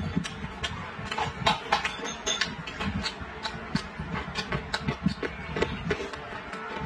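Close-miked eating sounds: chewing a mouthful of rice, vegetables and fried meat, with many quick wet mouth clicks and soft low chews in an irregular run.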